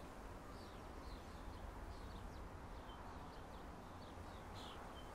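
Faint outdoor ambience: a steady low rumble with small birds chirping faintly now and then.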